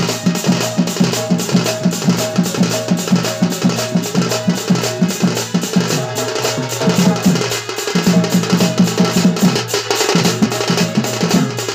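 Two-headed barrel drum (dhol) beaten in a fast, driving dance rhythm, about four to five strokes a second, with a brief lull about eight seconds in.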